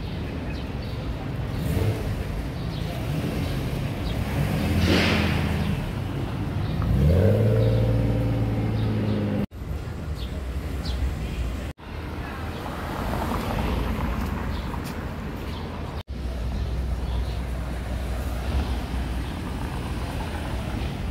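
Cars driving slowly away over brick paving, among them a Rolls-Royce Wraith and a Rolls-Royce Cullinan, with engines running low and steady. About seven seconds in, one car's engine rises in pitch as it accelerates. The sound breaks off briefly three times.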